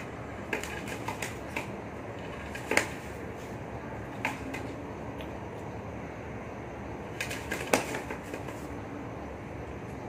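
Scattered light clicks and taps from hand-feeding a pigeon squab with a feed syringe, over a steady background hiss. The sharpest click comes about three seconds in, with another cluster of taps around seven to eight seconds.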